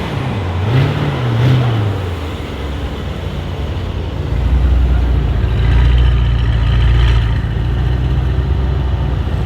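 Mercedes-AMG E63 S twin-turbo V8 blipped twice in quick revs, then running with a steady low drone that swells louder about four seconds in.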